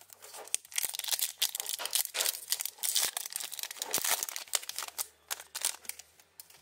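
Foil wrapper of a hockey card pack being torn open and crinkled by hand: a dense, irregular crackle of thin foil that dies away near the end.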